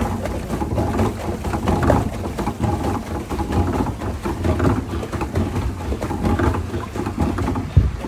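Pedal boat's paddle wheel churning and splashing the water as it is pedalled, with wind rumbling on the microphone.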